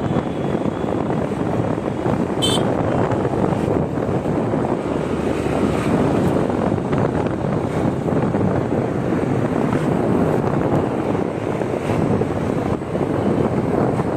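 Wind rushing over the microphone of a phone on a moving motor scooter, a steady loud noise mixed with the scooter's road noise. A brief click about two and a half seconds in.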